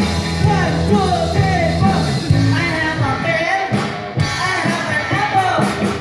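Live rock band playing through a stage PA, with a man singing into a microphone over it; a steady bass line is prominent for the first couple of seconds.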